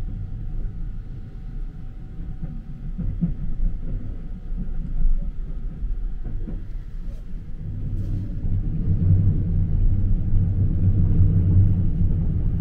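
Low running rumble of the Sunrise Seto sleeper train, a 285 series electric train, heard from inside a compartment as it travels along the rails. It grows louder about eight seconds in.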